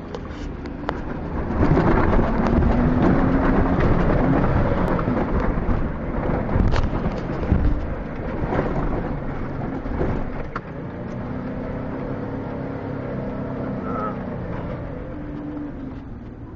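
Jeep engine revving up and down as it is driven hard over soft sand dunes, heard inside the cabin, under a heavy rumble of tyres in sand. Sharp knocks and rattles as the body jolts over the dune bumps; loudest a couple of seconds in.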